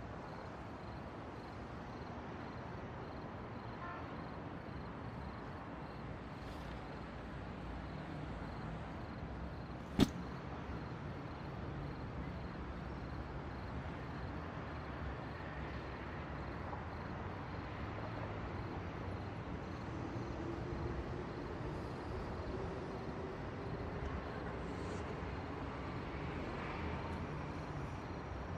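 Steady outdoor street ambience with distant traffic. A single sharp click about ten seconds in.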